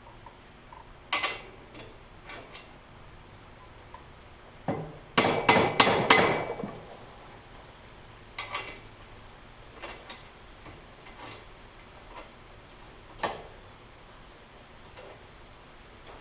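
Hammer striking a bolt on a lathe motor drive to bend it slightly: a single tap, then a quick run of about four hard blows midway, followed by scattered lighter taps and clinks.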